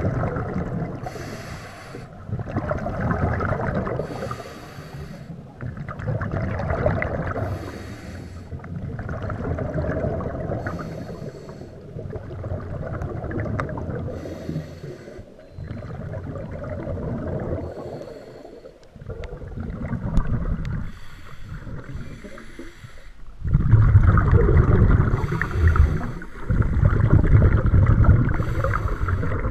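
Scuba diver breathing through a regulator underwater: a short hiss on each inhale alternating with a longer bubbling rumble of exhaled air, repeating about every three seconds. The bubbling gets much louder a little after twenty seconds in.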